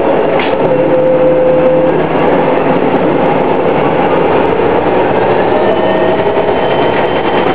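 New Flyer D60 articulated bus running, its Detroit Diesel Series 50 four-cylinder diesel and Allison B400R automatic transmission giving a steady whine over a constant heavy rumble. There is a brief squeak about half a second in.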